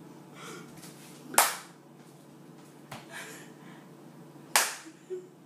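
Two sharp hand claps about three seconds apart.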